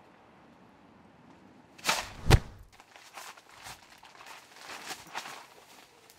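A sharp knock and then a heavy thud about two seconds in, followed by softer scuffling, shuffling and knocks for a few seconds.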